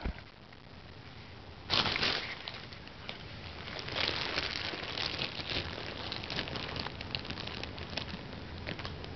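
Fabric cat tunnel rustling and crinkling as a cat shifts and turns around inside it. A loud rustle comes about two seconds in, followed by steady scratchy crinkling with many small clicks.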